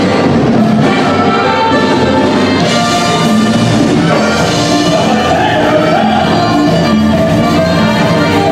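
Mexican regional dance music with horns carrying held melody notes over a steady beat.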